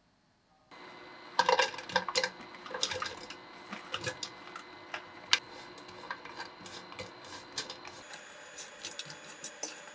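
Dried lotus root slices poured from a tray into a frying pan and stirred with a wooden spoon: a burst of dry rattling and clattering about a second and a half in as the slices land, then scattered light clicks and scrapes as the brittle chips are turned over low heat to toast.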